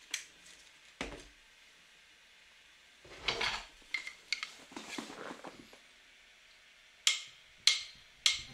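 A puppy scuffling and playing on a concrete floor: scattered light clicks, taps and scrapes, thickest in the middle, with a few sharper ticks near the end.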